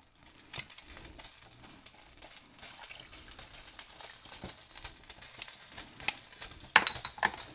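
Steady crackling sizzle of a pot of water heating on the stovetop, with many small ticks. Partway through, a thin stream of liquid is poured in from a small glass bottle, and a light glassy clink comes near the end.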